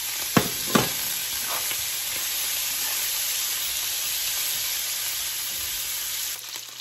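Pork pieces sizzling as they brown in coconut oil and rendered pork fat in a cast-iron skillet. A spatula clacks against the pan twice about half a second in, then once more faintly. The sizzle falls quieter near the end.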